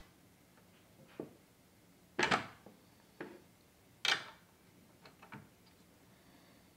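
Scattered light clicks and metal clinks of a circular saw being handled while its bevel lock knob and nut are tightened, with two louder clinks about two and four seconds in.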